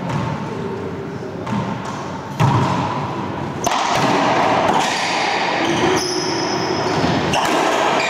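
Racquetball doubles rally in an enclosed court: the ball cracks off racquets and walls, echoing in the hall, with the loudest hit about two and a half seconds in.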